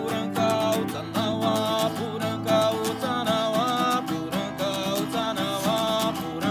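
Acoustic guitar strummed in a steady rhythm, with a sliding, wavering melody line carried over it.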